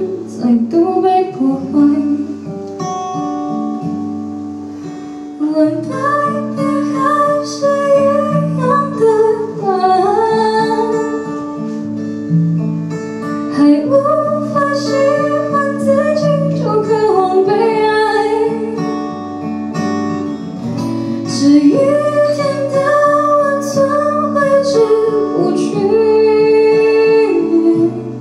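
A woman singing a slow ballad in Mandarin, accompanied by a single acoustic guitar. The guitar plays alone at first, and the voice comes in about five seconds in and carries the melody over it.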